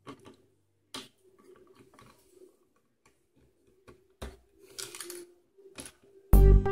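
Hard plastic toy pieces clicking and tapping as a small bee figure is handled and fitted into a plastic toy car, with a brief rustle in the middle. Loud music with guitar comes in near the end.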